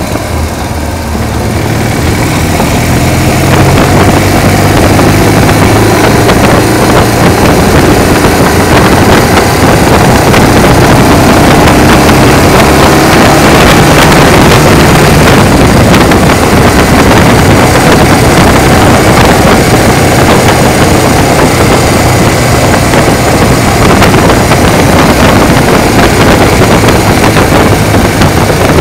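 Motorcycle-and-sidecar engine running under way at a steady road speed, with wind noise on the microphone. It gets louder over the first few seconds, then holds steady.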